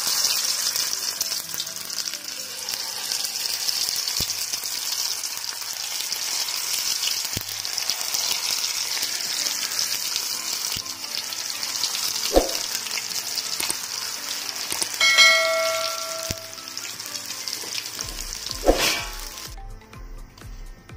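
Carrot-and-potato kurkure paste deep-frying in hot oil: a steady sizzle, with a few knocks and a short ringing ding about fifteen seconds in. Background music with a beat comes in near the end, and the sizzle cuts off.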